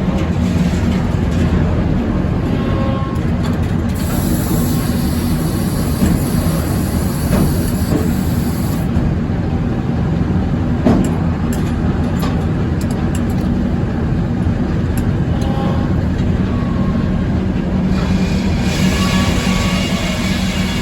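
Circular sawmill with inserted teeth running steadily while sawing 5/4 red oak. A harsher hiss joins the steady running from about four to nine seconds in and again near the end as the blade cuts through the oak.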